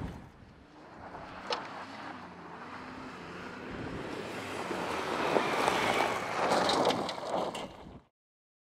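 Ford Expedition's 3.5-litre twin-turbo V6 engine running under load as the SUV drives over a gravel dirt track, with tyre rumble and gravel crackling. The sound swells to its loudest around five to seven seconds in, with a sharp click about one and a half seconds in, then cuts off abruptly about eight seconds in.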